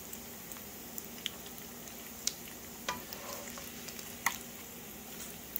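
Bacon grease sizzling steadily in a frying pan as the cooked bacon bits are scooped out with a slotted spoon, with a few sharp clicks scattered through it.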